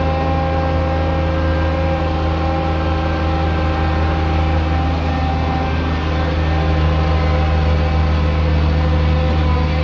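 Engine of road-works machinery running steadily at constant speed: a strong low hum with several steady whining tones above it.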